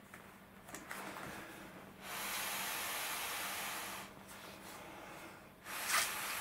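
Breath blown by mouth into the valve of an OEX Evolution Prowl XL self-inflating sleeping pad. Two long blows of rushing air, about two seconds each: the first starts about two seconds in and the second near the end. Quieter rubbing of the pad's fabric and valve comes first.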